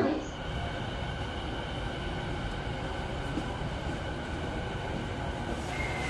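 Steady noise of a JR East E235-series commuter train car heard from inside, a low rumble with a few faint steady high tones over it.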